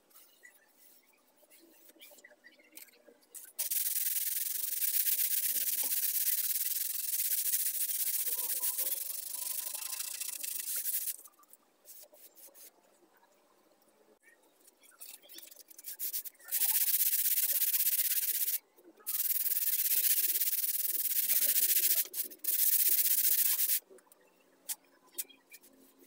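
Sandpaper rubbed by hand along teak wood cage slats: a hissing rasp in spells, one long spell of about seven seconds, then three shorter ones in the second half, with quiet pauses between.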